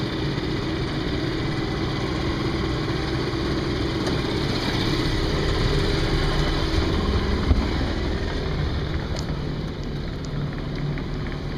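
Sailboat's engine running steadily as the boat motors under way, with one brief knock about seven and a half seconds in.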